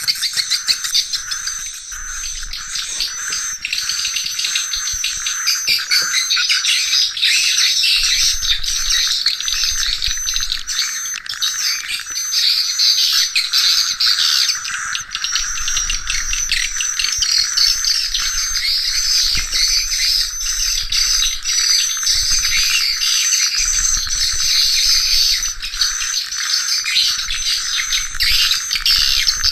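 Swiftlets twittering: a dense, continuous chatter of rapid high chirps.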